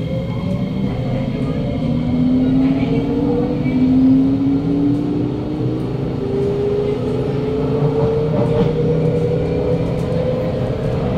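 Kawasaki Nippon Sharyo C751B train's traction motors whining as it accelerates away from a station, heard inside the car. Several tones climb steadily in pitch over a low hum: the strong "robotic" motor sound of this car.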